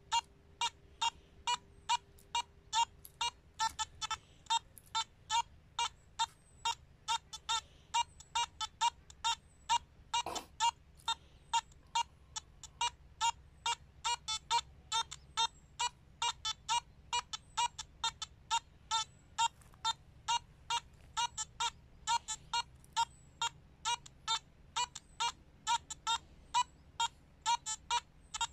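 Nokta Makro Simplex+ metal detector beeping over and over, two or three short, high beeps a second, as its search coil passes back and forth over a small copper object buried about 50 cm deep: the detector is signalling the buried target. A single sharp click about ten seconds in.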